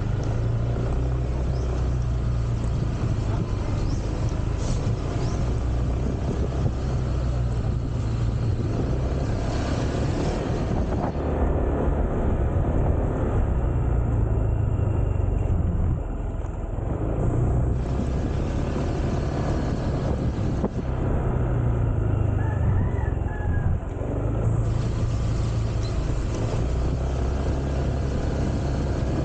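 Motor scooter engine running at low road speed, its low hum shifting up and down every few seconds as the throttle changes, with steady wind and road noise on the mounted camera's microphone.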